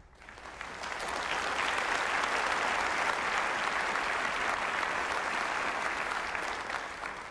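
A large audience applauding. The applause builds up over the first second, holds steady, then eases off slightly near the end.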